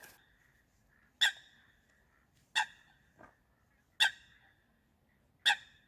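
A bird giving a short, sharp call four times at even intervals of about a second and a half, with one fainter call in between.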